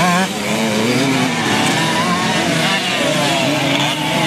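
Several Simson two-stroke moped engines racing on a dirt cross track, their overlapping notes rising and falling in pitch as the riders throttle up, shift and back off through the turns.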